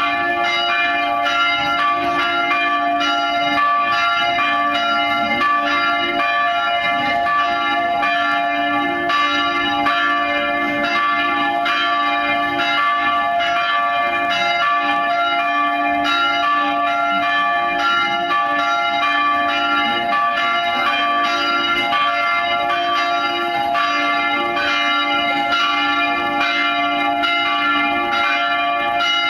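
Three church bells cast by Van Bergen of Heiligerlee, swing-rung together in a tower. Their strokes overlap in a continuous, unbroken peal. The ringing calls the faithful to Mass.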